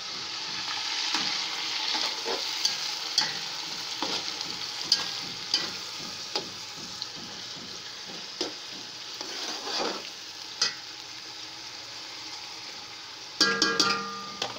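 Sliced onions sizzling in hot oil in a steel pot, with a spoon stirring them and knocking and scraping against the pot in irregular clicks.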